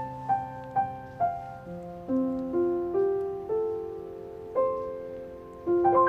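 Slow, soft piano melody: single notes struck one after another, roughly every half second with some longer gaps, each ringing on and fading over lower sustained notes.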